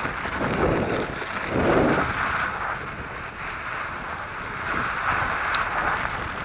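Wind buffeting the microphone over the rolling crunch of an electric mountain bike's knobby tyres on sand and gravel, with a single sharp click about five and a half seconds in.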